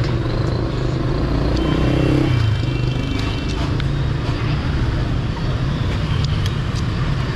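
Steady street traffic, mostly motorbike engines passing close by, with a few light clinks of a metal spoon on a plate near the end.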